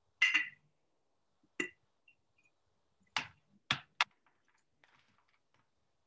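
Kitchen clatter: about five short, sharp knocks and clinks of containers and utensils, spread over four seconds, heard over a video call with silence in between.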